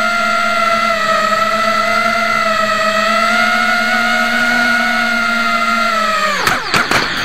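Racing quadcopter's brushless motors and propellers whining at a steady throttle. About six and a half seconds in, they spool down quickly, with a few sharp knocks.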